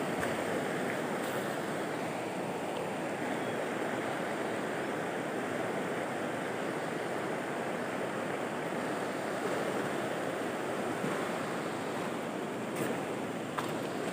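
Shallow rocky river rushing over stones in a steady wash. A couple of light clicks come near the end.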